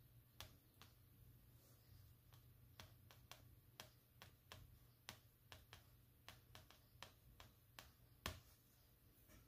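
Faint, quick ticks of a white oil pastel flicked across paper in short strokes, a couple of times a second, with one louder tap about eight seconds in.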